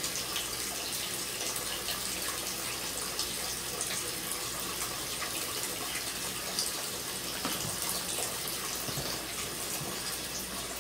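Electric mixer running steadily, beating cake batter, a constant whirring hiss.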